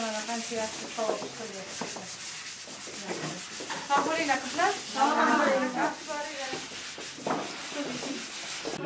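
A steady, scratchy rubbing noise, with voices talking indistinctly over it.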